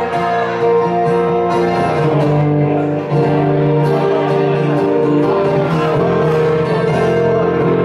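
Live band of two acoustic guitars and an electric guitar playing an instrumental passage of steady, held chords with no singing.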